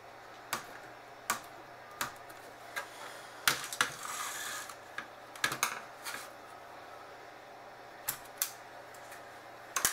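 Light plastic clicks and taps from prying out a laptop's fan power connector and handling the motherboard and its parts, about a dozen spread irregularly, with a brief scraping rustle around four seconds in.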